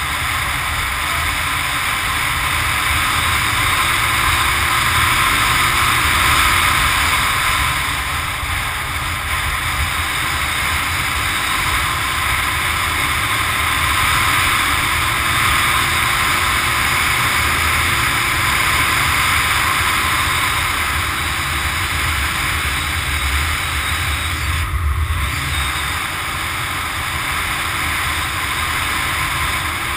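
Motorcycle riding along at road speed, heard from a bike-mounted camera: a steady rush of wind and road noise over the microphone with the engine running underneath, its pitch rising and falling gently.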